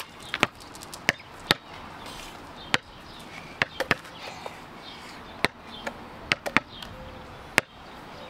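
Rubber balls bouncing on a concrete sidewalk as two children dribble: about a dozen sharp, irregularly spaced bounces, some coming in quick pairs.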